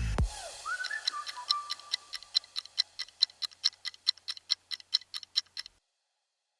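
Clock-ticking sound effect, a countdown timer for answering: evenly spaced ticks about three to four a second that stop suddenly near the end. A music sting fades out at the start.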